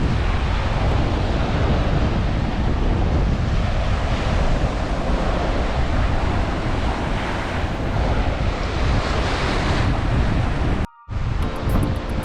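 Sea surf washing on the beach under strong gusty wind buffeting the microphone. The sound drops out for a moment near the end.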